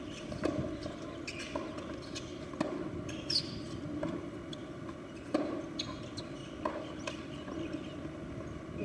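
Tennis court sounds: a steady low background din with scattered sharp knocks of a tennis ball being struck or bounced, at uneven gaps of one to three seconds, and a short high squeak a little over three seconds in.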